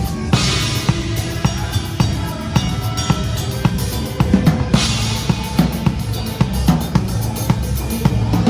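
Pearl Reference drum kit played in a steady groove: 22-inch bass drum, 14-inch snare and cymbals. Crash cymbal washes open about half a second in and again near five seconds.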